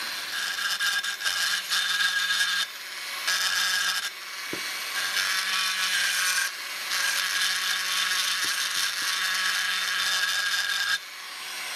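Carbide burr in a Foredom flexible-shaft rotary tool cutting into a cast-aluminium two-stroke engine case. It gives a steady whine with a hissing, grinding edge, breaks off briefly a few times, and stops shortly before the end.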